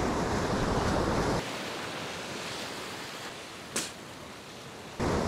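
Ocean surf and wind at the shore, with wind rumbling on the microphone. The loud rumble cuts off abruptly about a second and a half in, leaving a softer wash of surf with one sharp click near four seconds. The loud rumble comes back just before the end.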